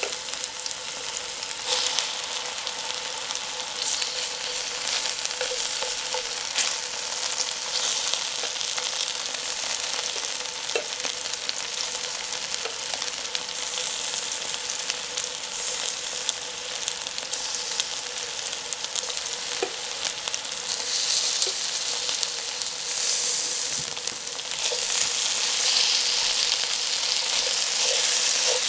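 Cubes of chicken breast frying in hot olive oil in a steel wok, a steady sizzle that grows louder near the end as the pieces are stirred.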